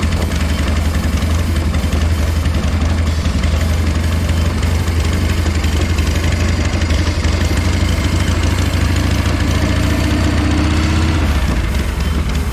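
1978 Harley-Davidson Shovelhead V-twin engine running steadily at idle, with a brief rise in revs about ten seconds in.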